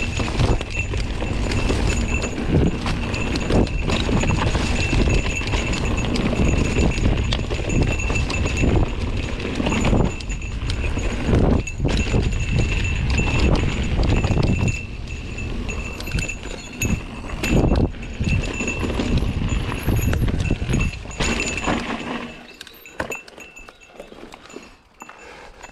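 Mountain bike rolling fast down a rough dirt singletrack: tyres and frame rattling and knocking over roots and stones, with rumbling air and trail noise. It goes quieter about three-quarters of the way through as the bike eases onto a smoother forest track.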